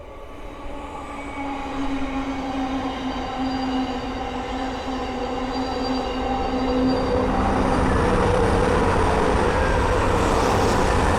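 Thameslink Class 700 electric multiple unit approaching and passing at speed: a steady whine from its traction equipment grows louder, then a broad rush of wheels on rail and air builds over the last few seconds.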